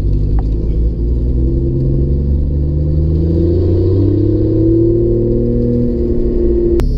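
Jeep engine and road noise heard inside the cabin while driving, the engine note climbing slowly as it speeds up, then breaking off suddenly near the end.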